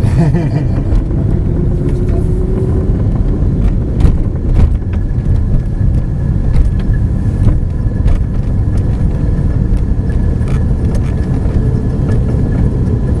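Aston Martin DBS V12 heard from inside the cabin while driving: a steady low engine and road rumble, with several sharp clicks and knocks, the loudest about four seconds in.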